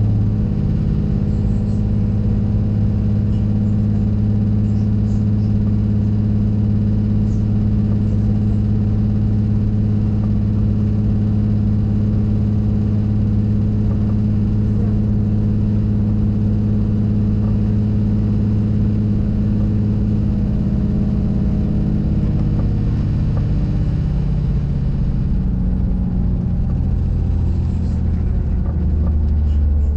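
Diesel regional train running, heard from inside the carriage: a steady low engine hum with rumble. After about twenty seconds the engine note drops in pitch and settles lower near the end.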